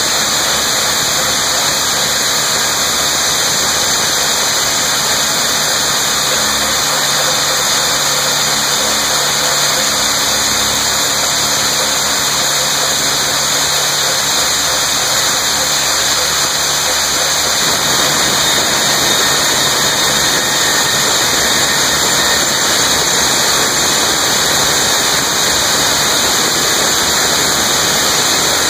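Hand-held rock drills boring bolt holes into a mine roof, a loud steady hiss. A lower hum underneath stops about two-thirds of the way through.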